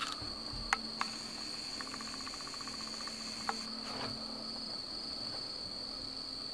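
Night insects singing in a steady, high-pitched continuous drone. A few light clicks sound in the first second and once more a little past the middle, and a brief rapid pulsing chirp comes about two seconds in.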